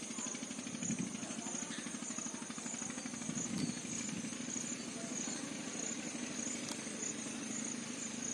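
A steady low hum from an idling motor runs throughout, with a high, pulsing insect chirp over it.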